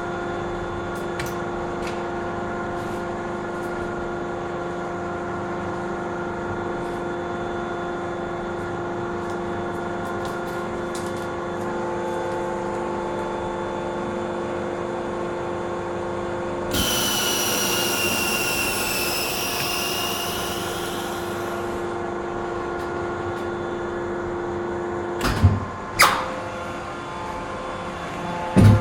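Melamine press machine running with a steady motor hum. About halfway through, a loud hiss with a whistle sets in and fades over about five seconds, then a few sharp clunks come near the end.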